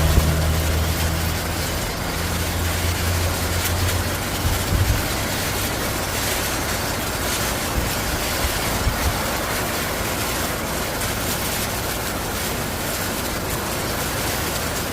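A bus engine running with a low hum that fades out about four seconds in, under the steady hiss of heavy rain.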